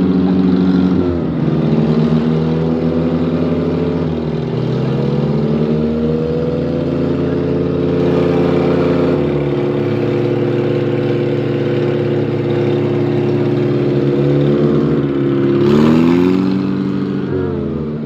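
Two Mahindra tractor diesel engines, a 585-DI and a 575, working hard against each other in a tug-of-war. The revs drop, climb and shift several times as the engines labour under the pull, with a rising rev and a burst of noise near the end.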